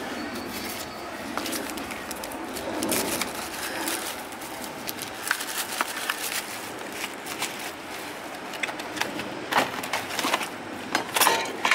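Plastic bags crinkling and small parts clicking as hands sort through a plastic crate of electrical components, the clicks thickest near the end. A bird cooing is heard a few seconds in.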